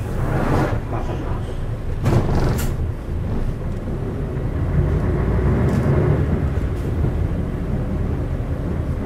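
Isuzu LV city bus's 8PE1 diesel engine running as the bus pulls away, heard from inside the cabin. There are two short bursts of noise in the first three seconds, and the engine grows a little louder in the middle.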